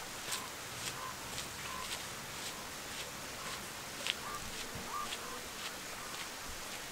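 Footsteps of a person walking on a dirt road, light and evenly paced at about two steps a second.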